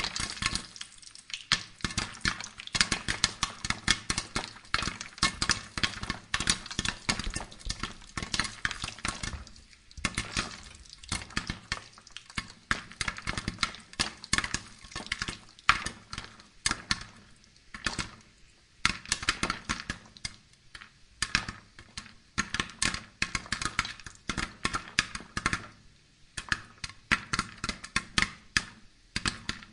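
Woven hand fan being flapped fast over a charcoal brazier of roasting corn cobs, giving a dense, irregular run of sharp crackles and clicks with a few brief lulls.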